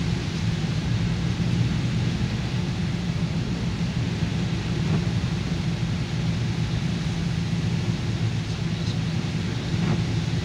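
Steady drone of a car driving through heavy rain, heard from inside the cabin: engine and road hum under the hiss of rain and of tyres on the wet road.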